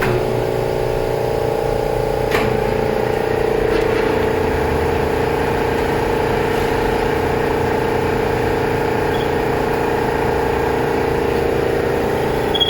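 Metal lathe running with a steady hum, facing the clutch friction surface of a BMW E39 variable-displacement air-conditioning compressor to make it flat so the clutch engages tightly. A light click about two and a half seconds in.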